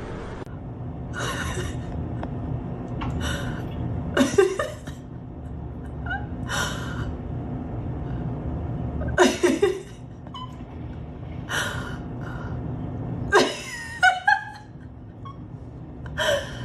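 A dog giving short, sharp, breathy huffs or sneezes, about eight of them, one every second or two, over a steady low hum.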